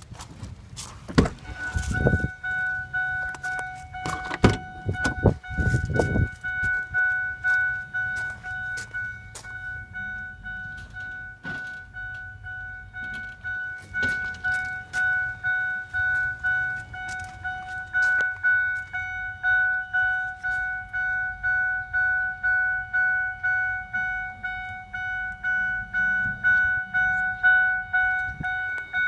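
A vehicle cab warning chime dinging over and over at one pitch, about one ding every 0.7 s, the kind a truck gives with a door open or the key left in. A few knocks and clunks come in the first six seconds.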